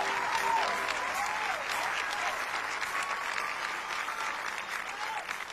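Audience applauding and cheering, with a few rising-and-falling whoops over the clapping, slowly dying down.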